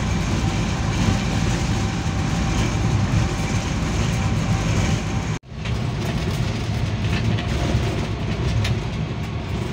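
GE GEU-40 diesel-electric locomotive running at speed, about 112 km/h, heard from the cab: a steady, heavy rumble of engine, wheels on rail and rushing air. The sound drops out for an instant about halfway through, then carries on as before.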